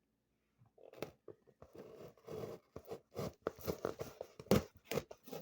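Packaging being torn open by hand: a run of irregular tearing and crinkling noises that starts about a second in and gets busier toward the end.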